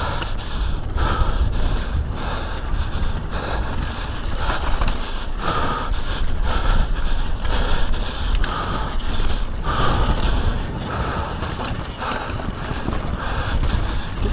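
Mountain bike descending a dirt trail at speed: steady wind buffeting on the microphone over the hiss of tyres on dirt, with repeated knocks and rattles from the bike over bumps.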